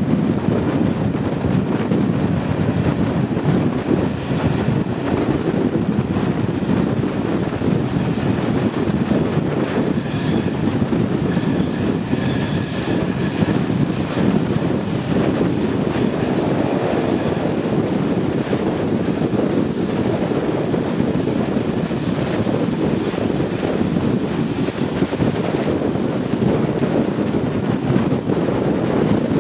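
Passenger train running along the track with a steady rolling rumble. A high wheel squeal comes in about ten seconds in for a few seconds, and again from about eighteen to twenty-five seconds.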